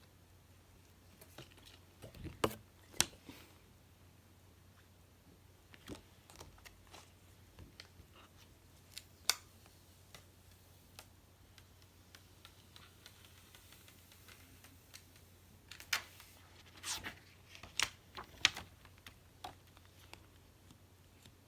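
Scattered light clicks and taps from handling small objects, loudest in clusters around two to three seconds in, near nine seconds, and from about sixteen to nineteen seconds, over a faint low hum.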